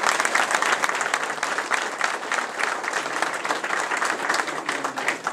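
Crowd applauding: many hands clapping at once, dense and steady, thinning out near the end.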